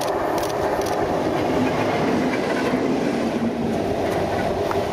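Class 60 diesel locomotive running light engine past at close range: its Mirrlees eight-cylinder diesel engine drones loudly over the rumble of its wheels on the track.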